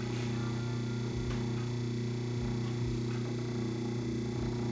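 Rebuilt drill-press electric motor running steadily with an even hum, with a buzzing from the vibration of the bench vise beside it.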